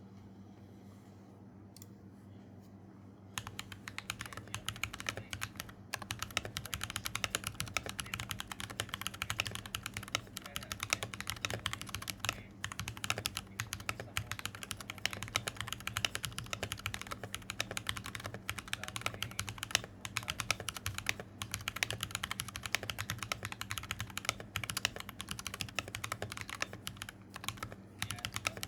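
Continuous fast typing on a custom mechanical keyboard, a KBD67V2 Rev2 with brass plate, lubed Everglide Dark Jade switches and EPBT PBT keycaps: a dense, uneven run of key clacks that starts about three seconds in. A low steady hum sits underneath.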